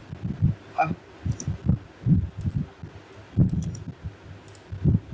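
Computer mouse clicking a few times, with sharp short clicks, over a run of low, irregular thumps several times a second.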